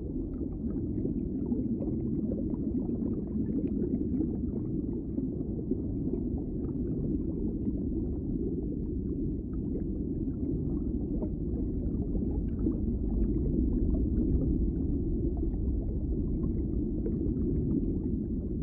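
Underwater sound picked up by a camera held below the surface: a steady, muffled low rumble with faint scattered crackles.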